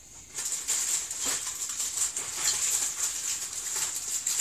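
Dry, continuous rustling and rattling from food and kitchen items being handled on a counter, starting a moment in and carrying on with irregular louder strokes.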